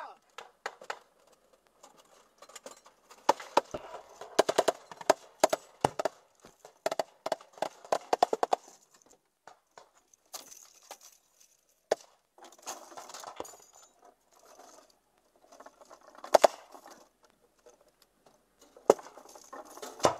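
A belt of linked .50-calibre machine-gun cartridges clinking and rattling as it is handled and brought up to the gun. There is a dense run of sharp metallic clacks about three to nine seconds in, then scattered single clanks, two of them loud near the end.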